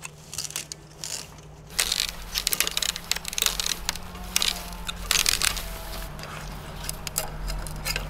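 Bamboo being split lengthwise into thin strips: dry, irregular crackling and splintering as the fibres tear apart. It gets much louder and denser about two seconds in.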